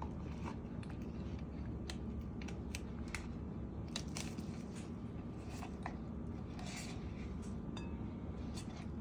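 Sour cream being spooned from its tub into a bowl: scattered light scrapes, taps and soft squishes of the spoon, over a steady low room hum.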